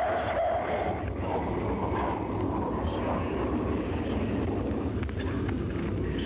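Steady roar of a formation of jet aircraft flying past at a distance, heard as an even rumbling hiss on an old film soundtrack.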